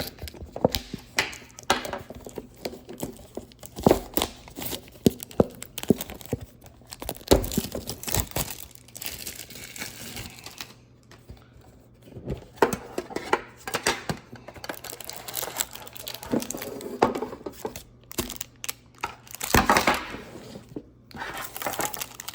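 Plastic wrapping crinkling and tearing as a tin of trading cards is unwrapped and handled, with irregular clicks and knocks throughout.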